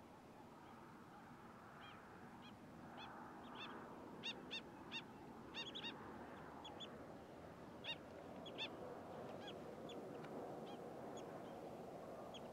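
Short, sharp, high calls from a flock of waterbirds as it takes flight. The calls come scattered at first, cluster most thickly in the middle and thin out towards the end, over a faint steady hiss.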